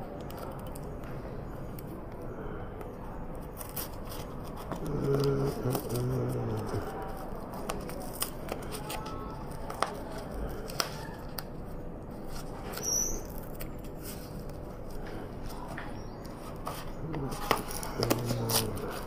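Scissors snipping through a plastic-wrapped courier parcel, with the wrapping crinkling and many small clicks throughout.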